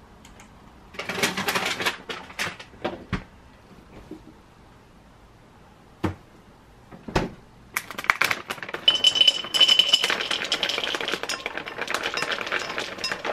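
Dishes clinking and clattering as they are handled on kitchen shelves, then two single knocks, then frozen blueberries poured into a glass bowl: a dense rattle of many small hard berries striking the glass, lasting the last five or so seconds.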